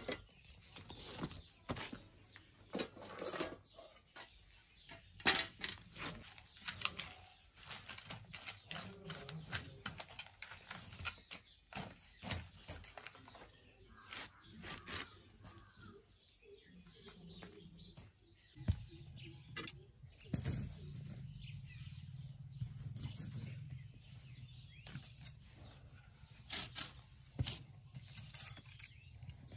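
Scattered clicks and knocks of tomatoes being set into the embers of a wood-fired clay chulha, with birds chirping in the background. A low hum comes in for a few seconds past the middle.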